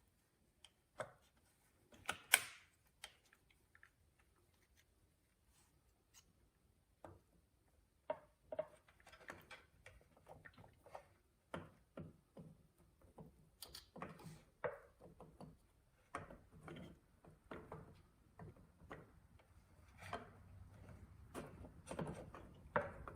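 Scattered clicks, clinks and knocks of hand tools and small metal parts being worked on an outboard engine during carburetor reassembly. A sharp knock about two seconds in is the loudest, and the clicks come thicker from about eight seconds on.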